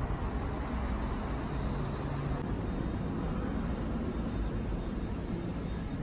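Steady outdoor background noise with a strong low rumble and no distinct events.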